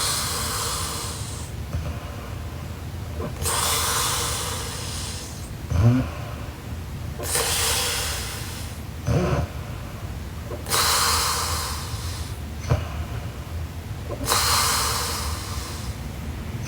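A sleeping woman breathing heavily and snoring: airy breaths come about every three and a half seconds, with a short low snort between some of them.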